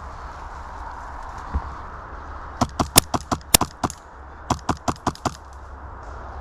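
Airsoft guns firing rapid shots: a string of about eight sharp cracks, then after a short pause a second string of about six.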